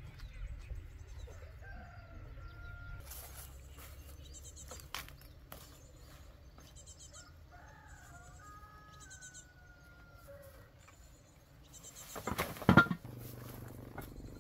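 A rooster crows twice, a few seconds apart, each crow a long held call, with small birds chirping in the background. Near the end comes a loud brief rustle and thump.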